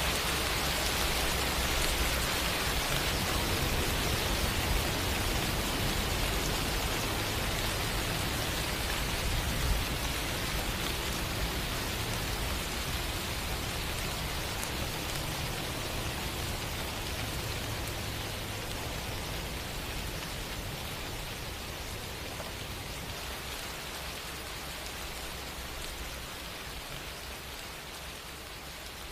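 Steady rain falling on a surface, an even hiss that slowly fades.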